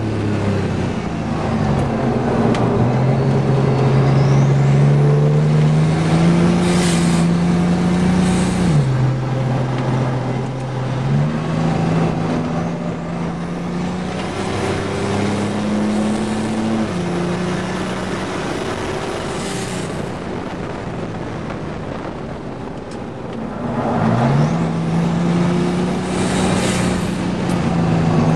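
GMC Syclone's turbocharged 4.3-litre V6 running hard at track speed, heard from inside the cab, its pitch holding steady and then stepping up or down with each gear change. It eases off and dips briefly near the end, then pulls again.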